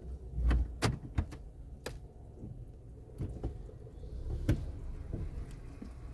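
Hanging cloth strips of a soft-cloth tunnel car wash slapping and dragging over the car, heard from inside the cabin: a low rumble early on with a few sharp slaps, the loudest about a second in and again about four and a half seconds in.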